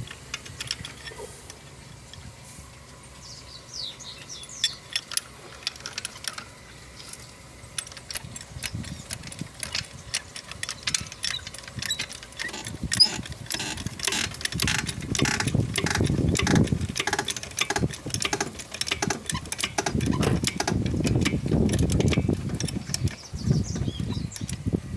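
Car jack being cranked by hand to raise a 1997 Fiat Palio: a long run of rapid, repeated metallic clicks and creaks, starting sparse and growing denser and louder about a third of the way in.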